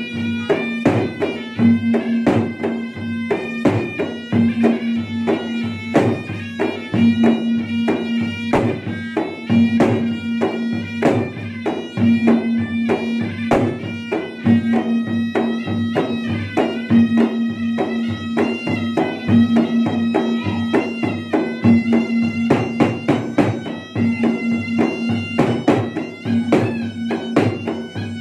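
Makassar gendang ensemble: two hand-beaten double-headed gendang drums playing rapid, dense strokes under a pui'-pui' shawm holding long notes that step from pitch to pitch.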